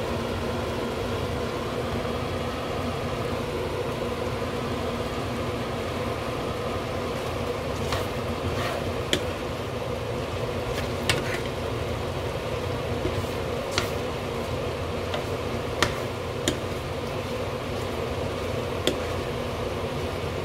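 Kitchen range hood fan running with a steady hum over tteokbokki simmering in a frying pan. From about eight seconds in, a plastic spatula knocks and scrapes against the pan now and then, giving sharp clicks.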